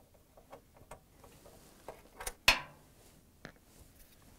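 Small scattered clicks and ticks of a Phillips screwdriver working out the screws that hold a washer's wire-harness bracket, with a sharper click about two and a half seconds in.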